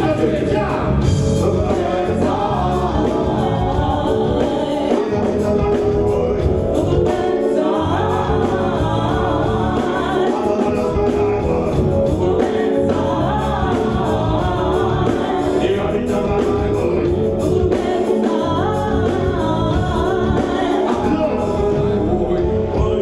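Live reggae band playing, with drums, electric guitar and keyboard under vocals sung into handheld microphones.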